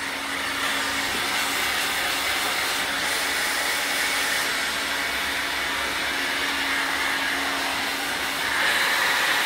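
Handheld hair dryer running steadily, blowing air at hair styled over a round brush: an even rush of air with a steady hum from its fan motor underneath, a little louder near the end.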